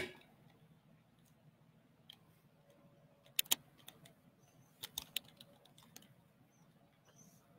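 Handling noise as the recording device is picked up and moved: a few sharp clicks and taps, two close together about three and a half seconds in and three more about a second and a half later, over a faint low hum.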